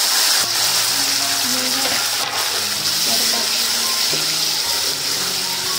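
Chopped tomatoes sizzling loudly in hot oil with fried onions in a steel kadhai, stirred with a steel ladle: frying the tadka (tempering) for dal.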